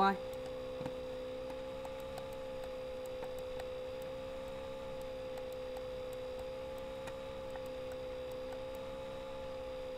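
A steady electrical hum: one constant mid-pitched tone with a fainter lower tone beneath it, and a few faint ticks scattered through.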